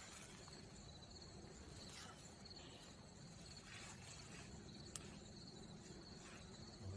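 Near silence with faint, steady insect chirring, such as crickets, and a single sharp click about five seconds in.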